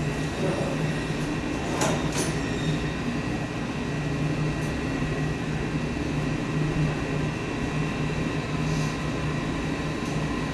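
A steady mechanical drone with a low hum and faint high whining tones, with two light clicks about two seconds in.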